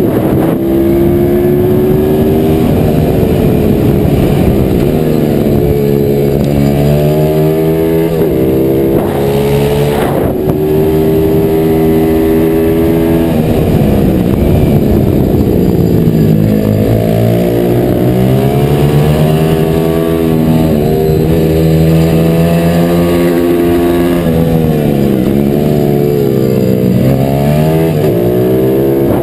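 Single-cylinder pit bike engine at racing speed, heard from a camera mounted on the bike: the engine note climbs through the gears, breaks at each shift, and drops off into corners, over and over as it laps.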